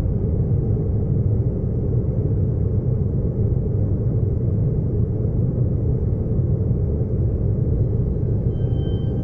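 A steady, dense low rumbling drone with no clear pitch and no breaks. A faint thin high tone comes in near the end.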